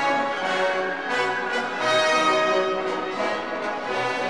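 Orchestral-style background music with long held notes.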